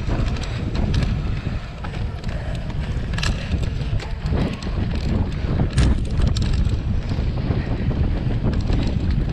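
Wind buffeting the microphone of a camera on a cyclocross bike racing over a dirt course, a steady rumble with a few sharp knocks from the bike over the rough ground, clearest about three and six seconds in.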